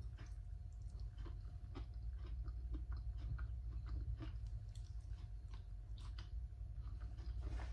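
A person chewing and biting food close to the microphone: small moist crunches and mouth clicks at an irregular pace, about two a second, over a steady low hum.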